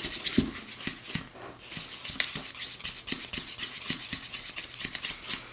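Plastic spoon stirring and scraping sticky glue slime around a ceramic bowl as activator is mixed in: a quick, irregular run of scrapes and clicks.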